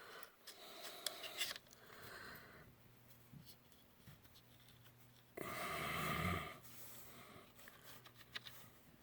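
Faint rubbing and handling sounds of a rag wiping a PVC pipe clean with acetone, with one louder rustle lasting about a second, about five and a half seconds in.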